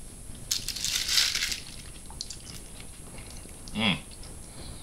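Fork picking through fried catfish on a plate: a rustling, clicking burst about half a second in that lasts about a second, then a few small clicks. A short vocal sound from the man near the end.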